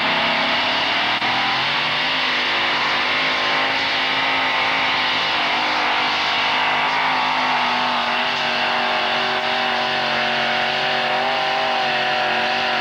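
Modified pulling truck's engine running flat out under heavy load as it drags a weight-transfer sled. The engine note climbs over the first couple of seconds, then holds high and steady, sagging slightly about eight seconds in.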